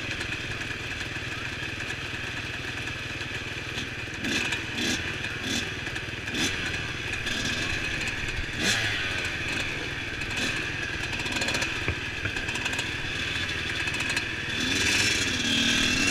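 Several dirt bike engines running near idle, with the engine note rising and falling briefly a few times and occasional sharp clicks.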